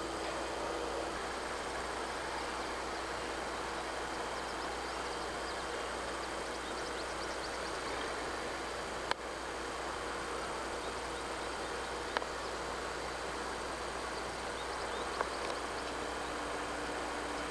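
Steady outdoor background noise with an even hiss, faint high chirps, and three sharp clicks about three seconds apart.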